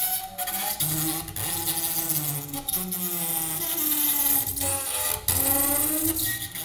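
Double bass bowed hard, giving slowly sliding, wavering pitches under a harsh, scratchy grinding noise, broken a few times by abrupt stops of the bow.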